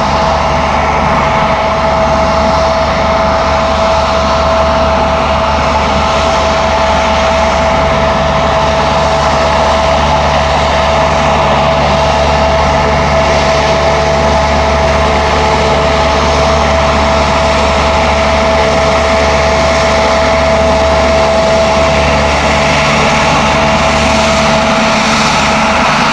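Jet airliner's engines running at idle: a steady high whine over a low rumble. The low rumble drops away shortly before the end.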